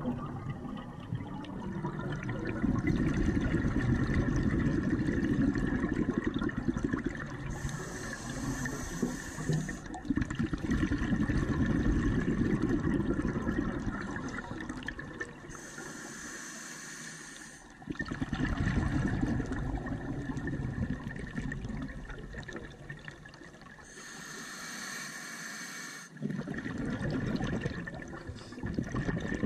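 Scuba diver breathing through a regulator underwater, heard through a GoPro housing. A high hissing inhale about every eight seconds, each followed by a longer, louder low bubbling rumble of exhaled air; three full breaths.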